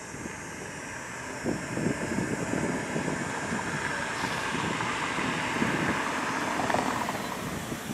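A car approaching and passing close by: tyre and engine noise that grows steadily louder and peaks near the end, with wind buffeting the microphone.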